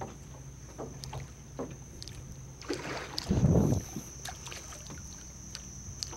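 Water slapping and small splashes at the surface beside a boat hull where a school of redfish is swirling, over a steady low hum. About three and a half seconds in there is a louder, deeper rush of water or wind.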